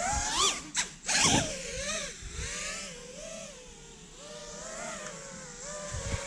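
5-inch FPV quadcopter's brushless motors and propellers whining, the pitch rising and falling with the throttle. About a second in there is a sharp punch of throttle with a rising whine, cut off briefly twice, before it settles back into wavering flight.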